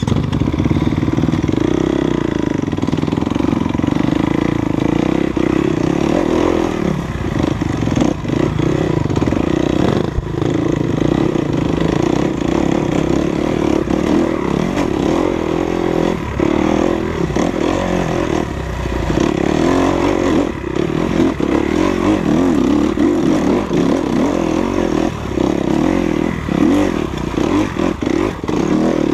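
Enduro motorcycle engine running with the throttle constantly varied, its pitch wavering up and down, along with many short clattering knocks as the bike rides over rough ground.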